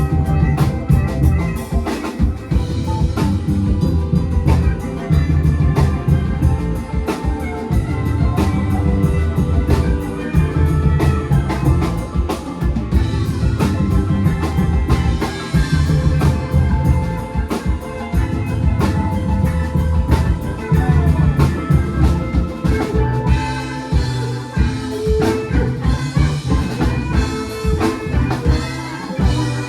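Live band playing an instrumental groove: a deep, heavy bass guitar line under a drum kit, with plucked and bowed melody instruments above.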